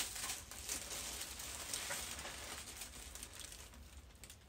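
Faint rustling and small clicks of gift packaging being handled, growing quieter toward the end.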